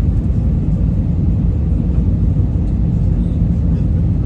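Airliner cabin noise: a steady low rumble of jet engines and airflow heard from inside the passenger cabin.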